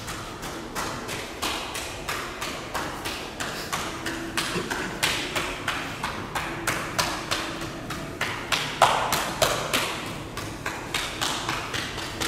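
A steady run of sharp taps or knocks, about three a second, with a short ringing ping about nine seconds in.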